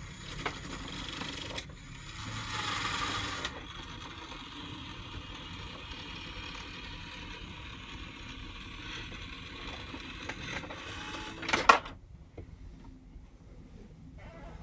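Mini claw machine's small motors whirring steadily as the claw and gantry move, a little louder for a second or so early on, then a sharp clunk near the end after which the whirring stops.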